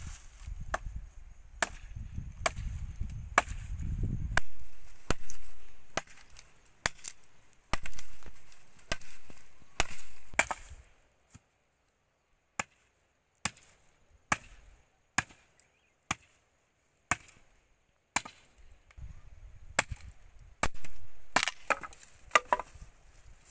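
Machete chopping a wooden stick, a long series of sharp strikes about once a second that thin out midway and then pick up again near the end.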